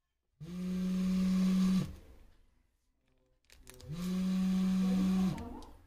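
Mobile phone inside a covered plastic beaker buzzing with an incoming call: two long buzzes, each rising in pitch as it starts and dropping as it stops, about two seconds apart.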